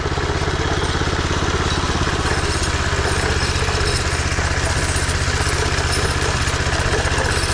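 Power trowel's gasoline engine idling steadily, with an even, fast pulse.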